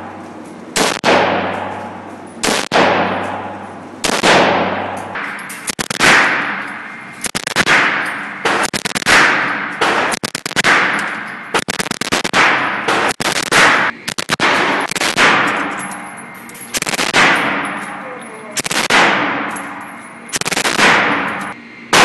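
Gunfire from a rifle and a submachine gun in an indoor shooting range. The shots come about once a second, with some short bursts of two or three in quick succession, and each one rings on in a long echo off the range walls.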